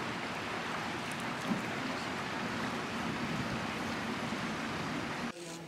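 Shallow, fast-flowing stream rushing over a stony bed: a steady wash of running water that cuts off suddenly near the end.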